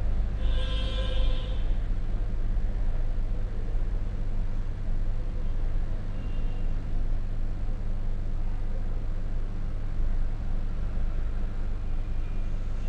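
Steady low electrical hum with hiss: background noise of the narration microphone, with a faint brief pitched sound about a second in.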